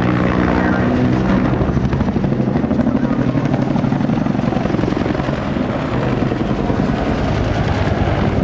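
Bell AH-1 Cobra and UH-1 Huey helicopters flying over, their two-blade main rotors beating in a rapid, steady thump.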